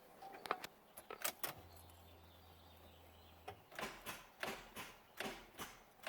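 NA Mazda Miata ignition key turned in the switch with a few sharp clicks, then a low steady hum for about two seconds. Then comes a run of repeated clicks, about two a second, with no cranking. This is the click-and-no-start symptom of a worn ignition switch.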